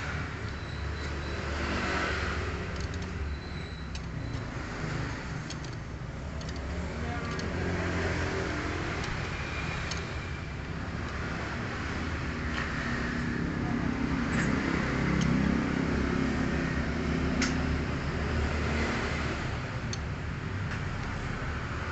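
Honda Karisma's single-cylinder four-stroke engine running, its speed swelling a little around the middle of the stretch and then easing.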